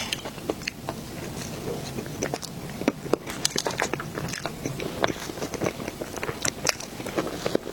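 Close-miked eating sounds: biting into and chewing soft dessert, a quick irregular stream of small wet mouth clicks and smacks.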